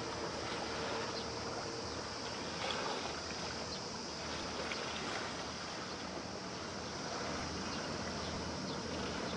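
A 110 m container ship passing close: a steady low engine drone under the even rushing of water at its bow.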